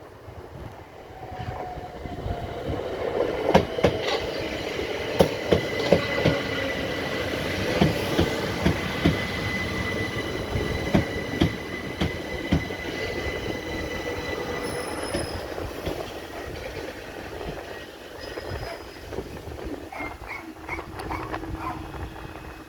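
Class 377 Electrostar electric multiple unit running through the station. Its wheels give a string of sharp clacks over rail joints, with a steady high whine over the rumble. The sound swells over the first few seconds and eases off after about 16 s.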